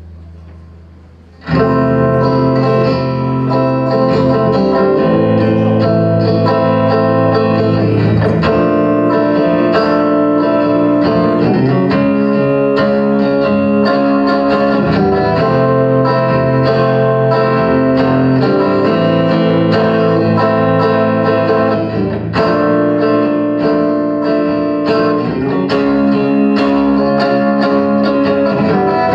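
Rock band playing live on electric guitars, bass guitar and drums. After a low hum, the whole band comes in loudly together about a second and a half in and keeps playing an instrumental passage with no vocals yet.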